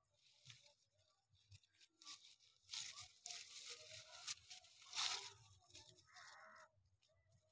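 Faint rustling and crackling of sugar apple tree leaves and twigs being brushed, starting about two seconds in, loudest about five seconds in, and dying away near the end.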